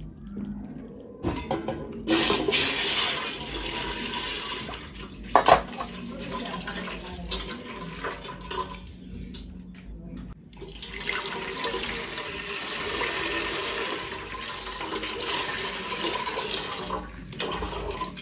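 Water pouring into a stainless steel cooking pot, in two long runs with a short break in the middle, and a single knock about five seconds in.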